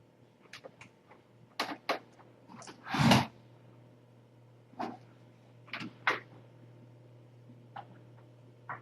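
Scattered small clicks and knocks, with one louder thump about three seconds in, over a steady low hum.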